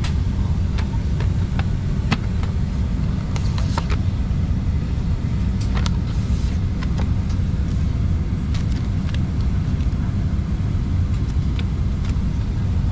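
Steady low rumble of cabin noise inside a Boeing 737-800 airliner, the engines and airflow droning evenly, with scattered light clicks and knocks from the cabin.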